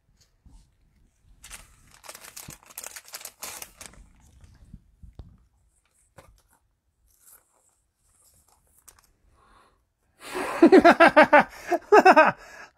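A cellophane trading-card pack being torn open and crinkled for a couple of seconds, about a second and a half in, followed by faint rustling as the cards are handled. Near the end comes a louder run of short pitched sounds, each falling in pitch.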